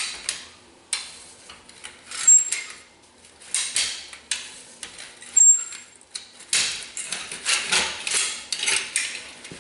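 Irregular metallic clinks, knocks and scrapes of hand tools and steel parts being worked while refitting a skid steer's rubber track, with pauses between them.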